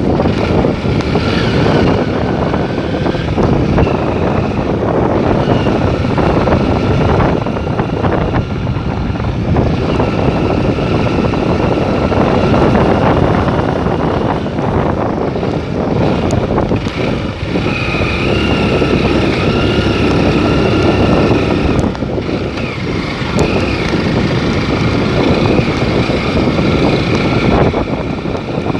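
Wind rushing over the microphone over a steadily running vehicle engine, heard while travelling along a road. Faint wavering whine tones come and go on top.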